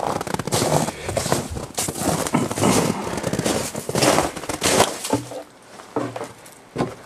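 Footsteps crunching in snow, an uneven run of crunches that dies down about five seconds in, with a couple of single crunches after.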